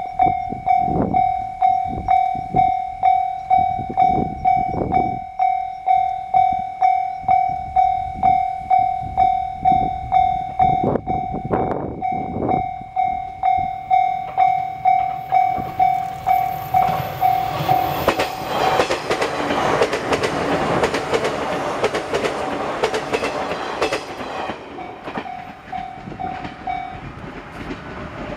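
Railway level-crossing warning bell ringing steadily at about two strokes a second while a JR 185-series electric train approaches. About halfway through, the train's passing takes over as a broad rush of wheels on rail with some clatter. It fades again, with the bell ringing faintly until it stops near the end.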